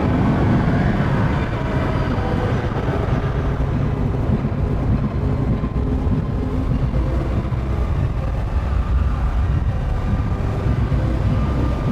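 Soma Laboratories Lyra-8 analog synthesizer playing a dense, low, steady drone with faint held tones above it.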